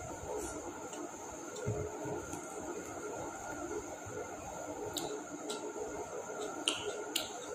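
Steady background hum, with a soft low thump about two seconds in and several short, sharp clicks in the last couple of seconds.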